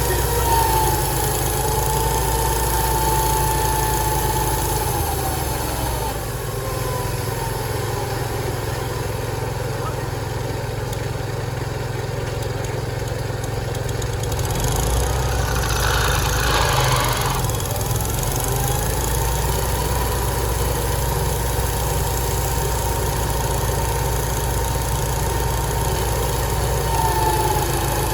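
Sawmill running: a steady engine hum under a high whine. The whine drops in pitch and fades about six seconds in, then rises back about twenty seconds in, with a short burst of hiss around sixteen seconds.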